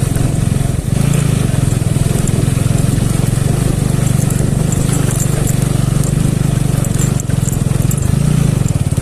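Motorcycle engine running steadily while riding on a rough road.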